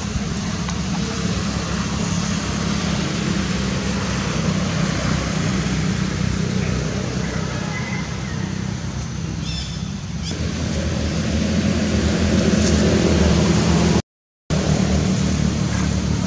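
Steady low rumble of motor traffic, swelling somewhat near the end and broken by a sudden half-second gap of silence.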